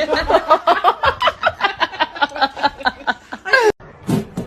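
Hearty laughter: a rapid run of pitched 'ha-ha' pulses, about five a second, that cuts off suddenly near the end.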